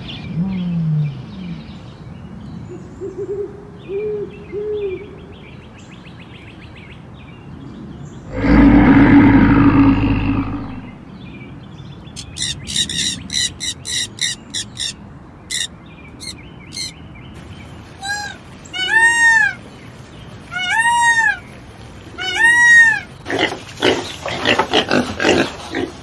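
A sequence of different animal calls: low calls in the first seconds, a loud low rumbling roar from about 8 to 11 seconds in, then rapid high-pitched calls of rainbow lorikeets, four separate arching calls, and pigs grunting in quick rough pulses near the end.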